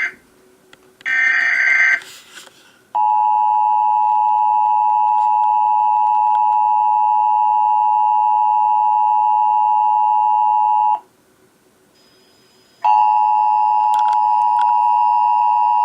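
Emergency Alert System test signal: a short burst of the warbling SAME digital header data, then the two-tone attention signal (853 and 960 Hz together) held steady for about eight seconds before cutting off suddenly. After about two seconds of quiet the same two-tone attention signal starts again, marking the start of the Required Monthly Test alert.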